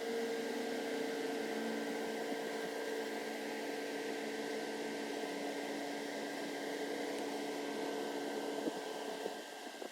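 Evaporative swamp cooler running on test, its blower fan and motor giving a steady hum with a constant whine over the rush of air. Near the end there are a couple of light clicks and the sound drops slightly.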